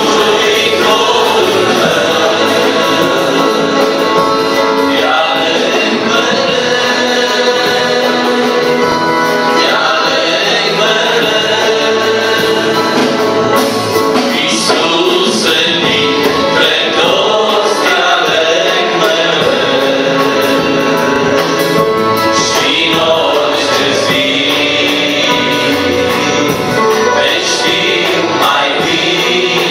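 Male vocal group singing a Christian song in Romanian in close harmony, accompanied by accordion and drums.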